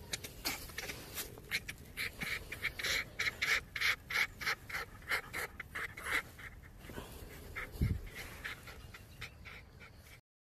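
A silver fox lying on its back while being rubbed, making quick breathy huffing sounds several times a second, densest through the middle. There is a soft low bump about eight seconds in, and the sound stops abruptly just before the end.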